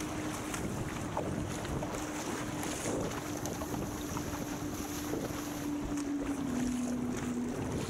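Wind buffeting the microphone over water splashing and rushing along a surfski's hull and off the paddle blades as it is paddled across choppy sea. A steady low hum runs underneath, dropping slightly in pitch past the middle and stopping just before the end.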